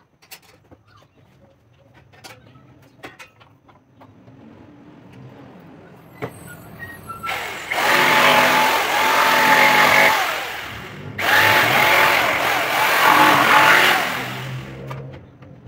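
Handheld jigsaw cutting a wooden board to round off a corner, in two runs of about three and a half seconds with a brief stop between, its motor whine wavering as the blade works through the wood. Before the cutting, a few light clicks and knocks.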